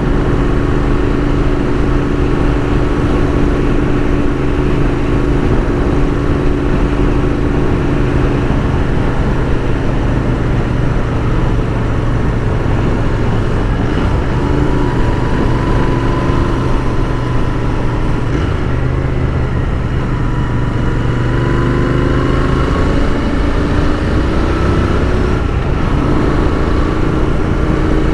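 Royal Enfield Continental GT 650's 648 cc parallel-twin engine running under way, with wind rush over it. The engine note holds steady, shifts pitch a couple of times and climbs in the last few seconds as the bike accelerates.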